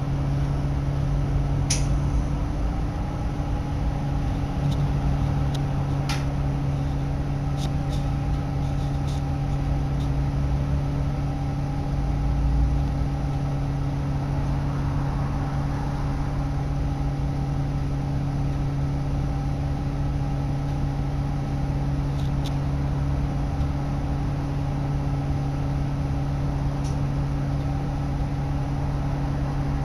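Nova LFS Artic articulated bus's engine idling at a standstill, a steady low hum heard from inside the cabin. A few light ticks sound over it now and then.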